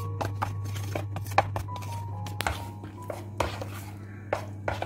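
Metal spoon stirring besan in a plastic mixing bowl: quick, irregular clicks and taps of the spoon against the bowl, growing fewer toward the end, over a steady low hum.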